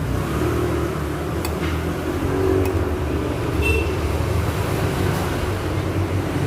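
Steady low rumble of passing road traffic, with a few light clicks scattered through it.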